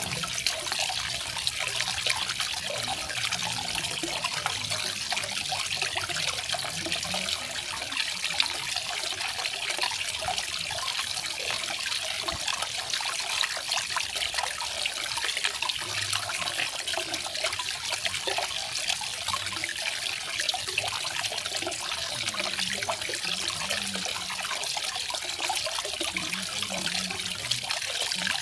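Garden waterfall: water falling and splashing in a steady, unbroken bright rush.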